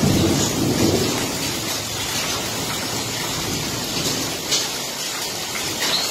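Heavy rain falling steadily as an even hiss, with a low rumble swelling through the first second or so and a few short sharp taps later on.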